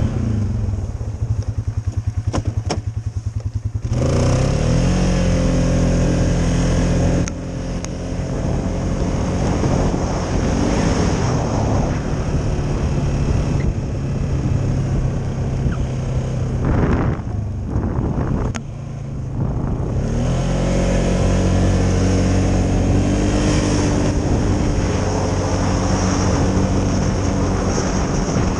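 Polaris Sportsman 570 ATV's single-cylinder engine running under way, heard from the rider's seat. It putters at low revs for the first few seconds, then the revs rise. They drop off briefly twice around the middle as the throttle is eased, then climb again.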